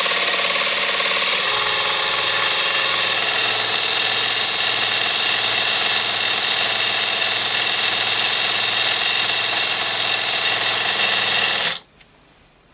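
Miniature aluminium belt sander with a 12–24 V DC motor running, its abrasive belt grinding a small metal engraver tool: a steady hiss over a motor whine. The motor's tone shifts about a second and a half in, and the sound cuts off abruptly near the end as it is switched off, followed by a few faint clicks.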